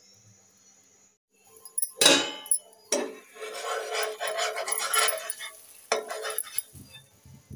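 Metal spatula scraping and knocking against a nonstick frying pan as a flatbread frying in it is lifted and turned, starting with a sharp clatter about two seconds in.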